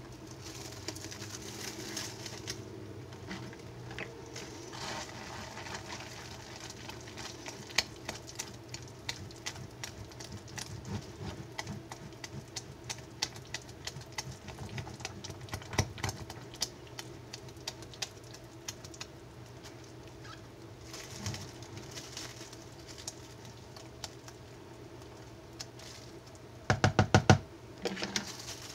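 Spatula stirring thick hot process soap batter with ground coffee in a plastic mixing bowl: a long run of small sticky clicks. Plastic wrap crinkles near the start, and a short louder knock comes near the end.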